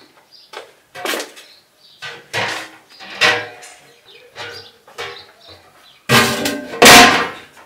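Footsteps on a wooden floor as a large aluminium stockpot is carried in, then the pot set down on a metal stovetop with a loud, ringing metallic clank and scrape about six seconds in.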